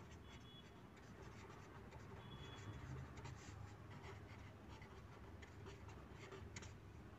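Faint scratching of a felt-tip pen writing on paper, in many short, irregular strokes.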